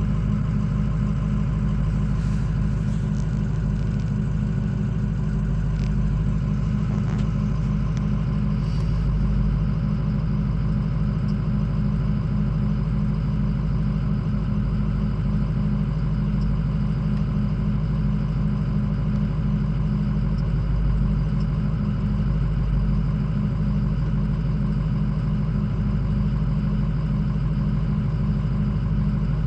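Ford 6.0L Power Stroke V8 turbo-diesel idling cold and rough, running steadily with high injection control pressure; the owner traced the fault to the IPR valve, which an OEM replacement fixed.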